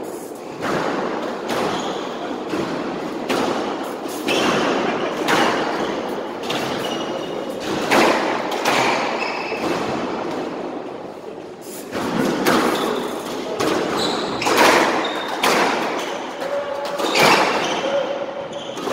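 Squash ball being struck by rackets and hitting the court walls: a run of sharp thuds that ring on in the hall.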